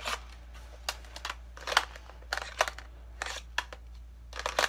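A BB pistol and its plastic holster being handled, with the pistol being fitted into the holster: a string of irregular sharp clicks and knocks of plastic on plastic.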